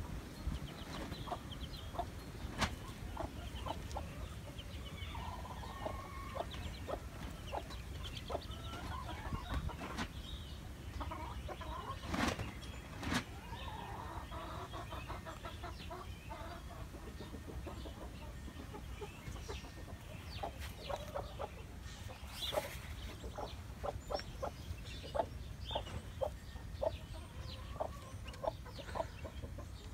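An Australorp hen and her chicks clucking in short, separate calls, coming thicker in the last ten seconds, with a few sharper, louder calls or knocks around a third of the way in.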